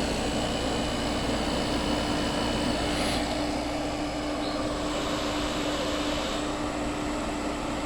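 Old Gibson window air conditioner running, heard from its outdoor side: the steady rush of the condenser fan blowing out hot air over a steady hum from the running unit.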